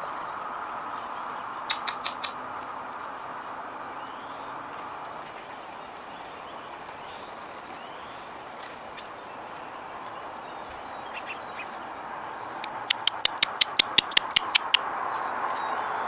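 Outdoor background noise with a few short, high bird chirps; white-crowned sparrows are feeding on the ground. Near the end comes a quick run of about a dozen sharp clicks, about five a second, the loudest sound here.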